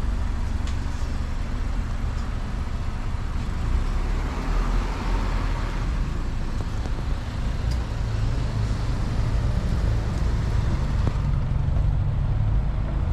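A motor vehicle's steady low rumble, without pauses or sharp changes.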